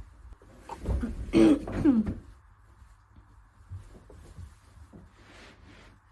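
A person coughing, a quick cluster of short coughs about a second in.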